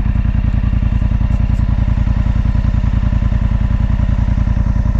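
Polaris Sportsman 850 ATV's parallel-twin engine running steadily with an even low beat of firing pulses.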